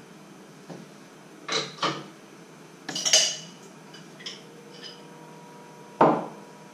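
Kitchen clatter: utensils and jars knocked and set down on a wooden cutting board, a handful of separate knocks and clinks, with the loudest a little after three seconds in and again near the end.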